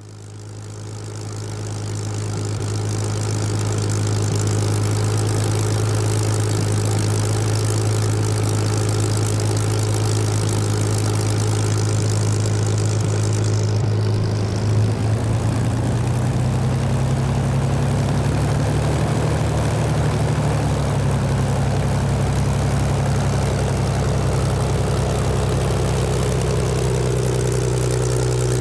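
Propeller aircraft piston engine running steadily, fading in at the start. Its pitch steps up slightly about halfway through.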